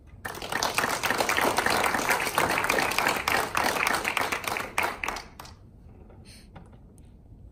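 Small audience applauding, a dense run of hand claps lasting about five seconds that tapers off to a few last claps.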